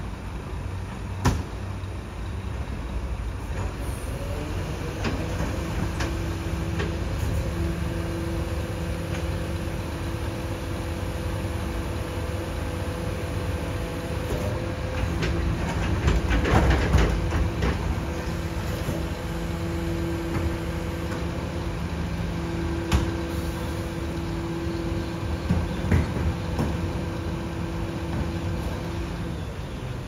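Scania P360 rear-loader garbage truck's diesel engine running, with a steady hydraulic hum coming in about five seconds in as the lifter raises a wheelie bin. Rubbish rushes out of the tipped bin into the hopper about halfway through, and the metal bin and lifter clank sharply about a second in and twice near the end.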